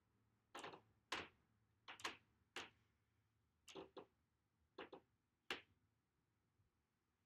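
Paintbrush strokes on canvas: about ten short, faint strokes over some five seconds, a few in quick pairs.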